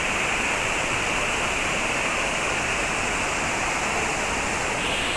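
Waterfall and rushing river rapids: a steady, unbroken rush of falling water.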